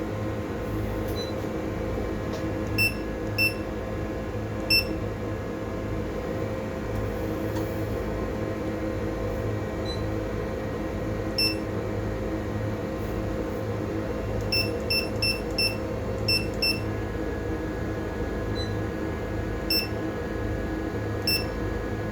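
Short, high electronic beeps, about a dozen, some single and a quick run of six in the middle, typical of button presses on a piece of electronic equipment. They sit over a steady low hum from the vessel's machinery.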